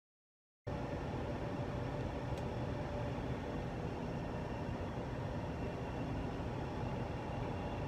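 Steady background rumble and hiss that cuts in abruptly under a second in, with one faint tick about two and a half seconds in.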